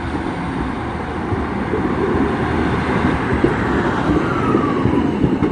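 Single-car Class 153 diesel railcar running on the line, its engine and wheels growing slowly louder. A faint whine falls in pitch about four seconds in.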